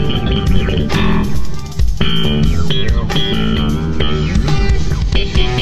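Live instrumental rock-fusion: lead electric guitar playing held and bending notes over electric bass guitar and the band.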